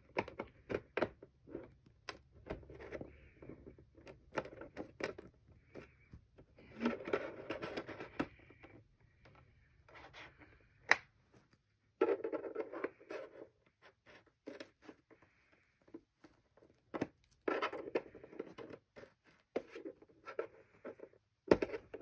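Plastic pry tool scraping and clicking along the seam of an HP 20-C434 all-in-one PC's plastic back cover as it is pried loose, in irregular scrapes with many sharp clicks.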